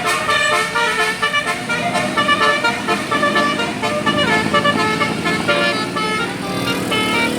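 Indonesian bus 'telolet' Basuri musical horn playing a quick melody of short honking notes, one after another without a break.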